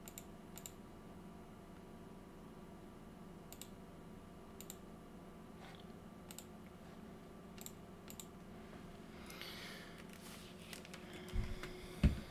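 Scattered single clicks at a computer, spaced a second or more apart, over a steady low electrical hum. A short rustle follows, then two dull thumps near the end, the second the loudest.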